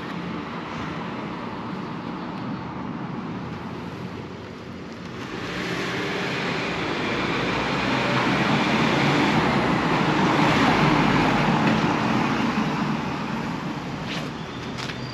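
Street traffic: a passing vehicle swells and fades over several seconds, loudest about ten seconds in, over a steady low hum. A couple of faint clicks come near the end.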